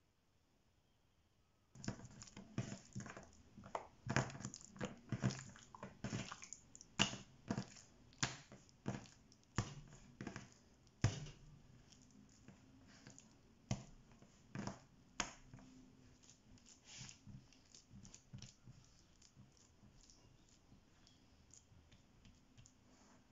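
Wet, high-hydration focaccia dough slapped down onto a metal worktop and folded over, over and over. It makes sticky, smacking slaps and squelches about one or two a second. They start about two seconds in, are loudest in the first half, and soften into quieter squishing as the dough is rounded off.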